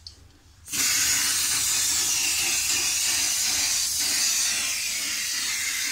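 Aerosol spray-paint can held down and spraying: one long, steady hiss that starts just under a second in and runs on without a break.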